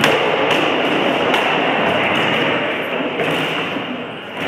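Rattan weapons striking shields and armour in SCA heavy-combat sparring: several sharp knocks over a steady noisy hiss.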